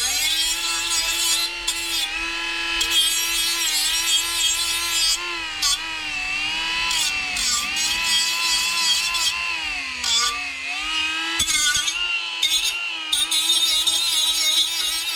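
Handheld power grinder running steadily with a high whine, its pitch sagging briefly several times as it is pressed into the metal of the car body.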